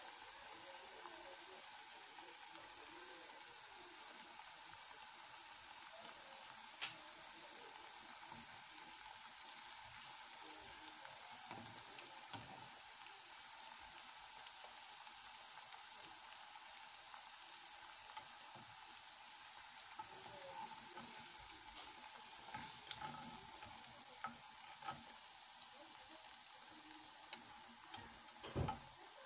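Bitter gourd slices deep-frying in hot oil, a steady sizzle. A few sharp clicks of a metal slotted spoon against the pan come through, most of them in the last few seconds as the slices are stirred and lifted out.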